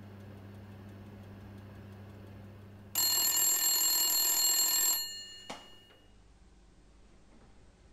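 Oven timer bell ringing loudly for about two seconds, signalling that the baking time is up, over the low steady hum of the running oven. A single sharp click follows shortly after the ringing stops.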